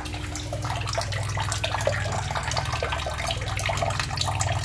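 Water running and splashing steadily, with many small spatters and a steady low hum underneath.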